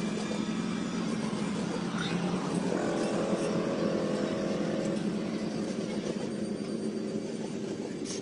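Diesel freight locomotive passing close by, its engine droning steadily; about three seconds in a higher engine note comes in for a couple of seconds as it goes past and the trailers behind it start to roll by.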